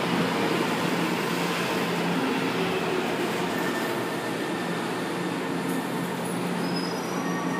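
Subway train running along the platform as it brakes toward a stop: a steady rumble of wheels and running gear under a low hum, easing slightly as it slows.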